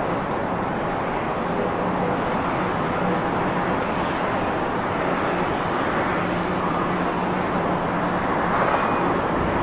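Steady jet engine noise from an Airbus A320-family airliner climbing out after takeoff, a broad, even rush that swells slightly near the end.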